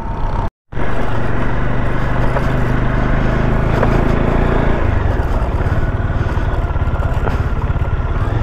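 Motorcycle engine running steadily while the bike is ridden, with road noise; the engine note drops about five seconds in.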